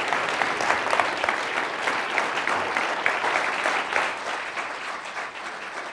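Audience applauding: a dense patter of many hand claps that eases off slightly near the end.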